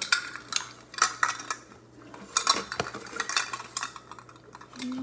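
Plastic measuring cups clacking and rattling against each other as they are handled and sorted, a string of irregular sharp clicks.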